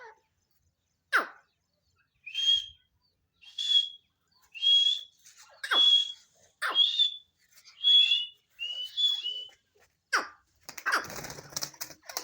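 Francolin (teetar) chicks calling: a run of short, high peeping calls about once a second, mixed with sharp chirps that sweep down in pitch. A brief noisy rustle comes near the end.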